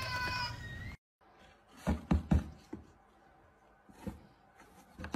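A short, steady high-pitched tone that rises at its end, then, after a break, three loud dull knocks in quick succession about two seconds in, with a softer knock after four seconds: a cardboard box being knocked against.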